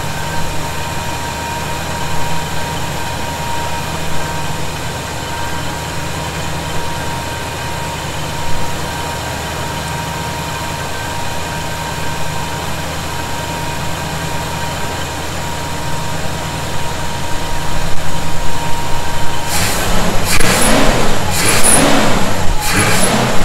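1971 Chevy C10 pickup engine idling steadily, checked for a vacuum-leak whistle that is not heard now that the bolts are snugged up. About four seconds from the end the steady idle gives way to several loud, rushing surges.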